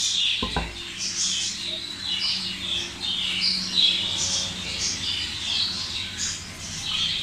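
Small birds chirping over and over, short high calls following one another with little pause. A single knock about half a second in.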